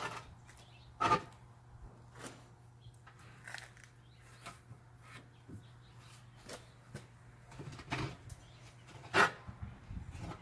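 Scattered knocks and clanks of hand tools working a rear tractor tire's bead back over its steel rim, two of them louder, about a second in and near the end. A faint steady low hum runs underneath.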